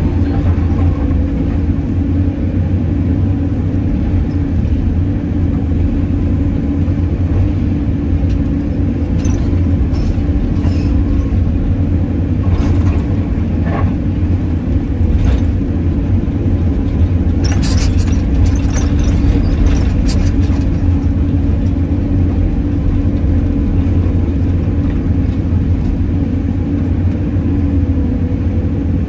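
Caterpillar 320D excavator's diesel engine running steadily, heard from inside the cab, with a scatter of short clicks and rattles around the middle.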